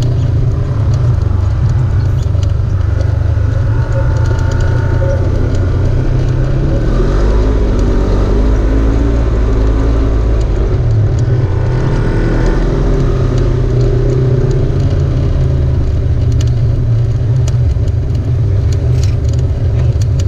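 Off-road vehicle engine running with a heavy, steady low rumble.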